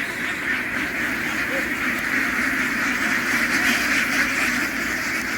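A large flock of ducks quacking all at once: a dense, unbroken din of overlapping calls, like a swarm of bees.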